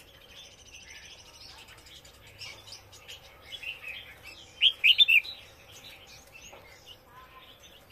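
Caged songbirds chirping in short, scattered notes, with a loud cluster of sharp calls about five seconds in.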